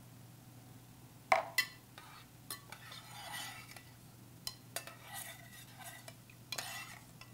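A metal spoon stirring orzo pasta and water in a stainless steel saucepan, with repeated scraping swishes and light clinks against the pot. Two sharp knocks about a second in are the loudest sounds.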